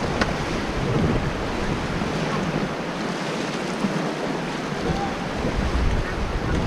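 Steady rush of white-water river rapids, with wind buffeting the microphone.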